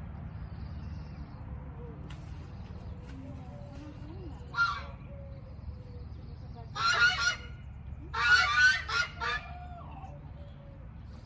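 Birds honking: one short call about four and a half seconds in, then a longer call and a quick run of three or four calls in the second half, over a steady low rumble.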